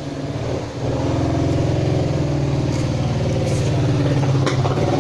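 A vehicle engine running steadily close by, at a constant pitch, with one sharp tap about four and a half seconds in.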